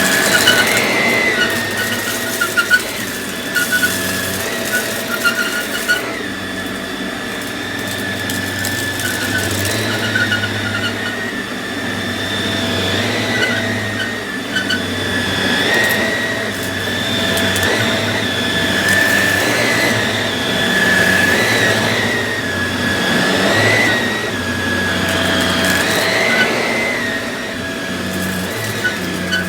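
Samsung CycloneForce upright vacuum running with a steady whine and low hum as it is pushed over the floor picking up dog hair and rice, with scattered clicks of debris being sucked in.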